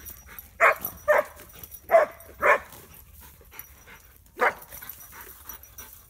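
German shorthaired pointer barking and yelping while fighting a wild hog: five short, sharp calls, two quick pairs and then one more near the end.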